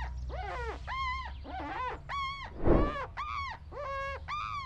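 A small dog yipping and whimpering: a quick string of short, high cries that rise and fall, about three a second, over a low steady hum. A dull thump comes just past the middle.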